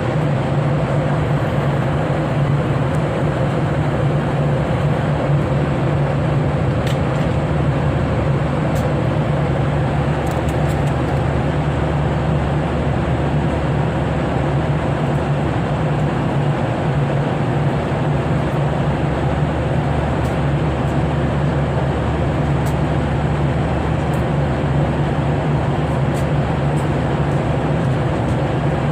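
Steady in-flight airliner cabin drone, engine and airflow noise with a strong low hum, and a few faint ticks.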